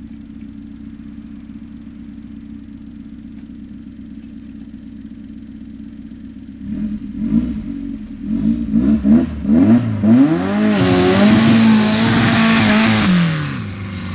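Dune buggy engine idling steadily, then revved up and down several times and held at high revs for about three seconds with a loud hiss as the rear paddle tyres spin and throw dirt, getting little traction on the grass. The owner suspects the paddles are mounted backwards.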